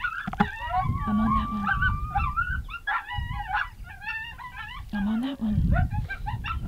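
Coyotes yipping and howling: a chorus of short, wavering high yips mixed with a few longer held howls.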